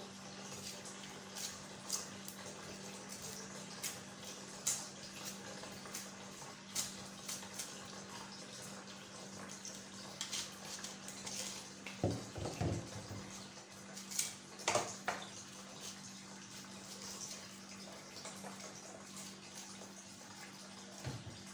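Tap water running steadily into a stainless-steel kitchen sink, with scattered sharp clicks and knocks from a kitchen knife working onions over the sink; a cluster of louder knocks comes about halfway through.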